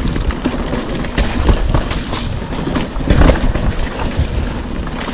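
Full-suspension mountain bike rolling down a dirt trail: a steady rumble of tyres and wind on the microphone, with a few sharp knocks as the bike clatters over bumps.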